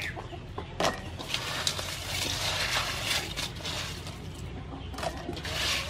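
Hands rummaging through ice and blue crab pieces in a stainless steel bowl: ice and shells rattling and scraping, with a few sharper clicks.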